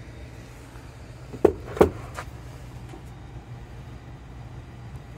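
Handling noise from prismatic battery cells: two short knocks about a second and a half in, and a couple of fainter ticks after, over a steady low hum.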